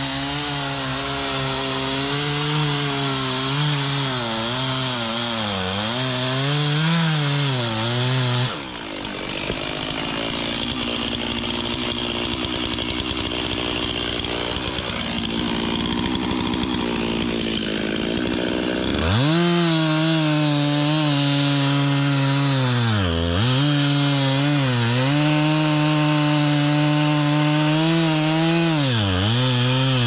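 Gas chainsaw cutting into oak wood, its engine note dipping again and again as the chain loads in the cut. The sound changes for about ten seconds in the middle, then the saw's strong note returns.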